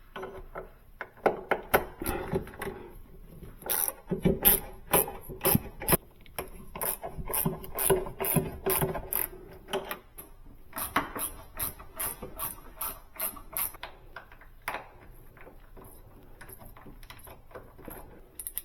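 Ratchet wrench clicking in runs of quick clicks while the bolts of a Sub-Zero refrigerator's lower door hinge are worked loose, with tool and metal handling between runs.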